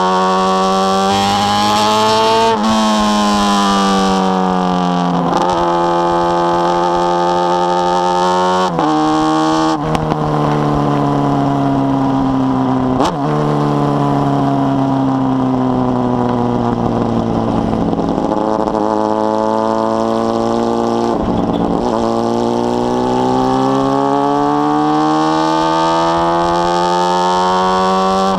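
Honda Hornet 600 inline-four motorcycle with a 4-into-1 exhaust accelerating through the gears: the engine note rises and drops abruptly at each upshift, several times in the first half. It then falls steadily for several seconds as the bike slows, and climbs again near the end.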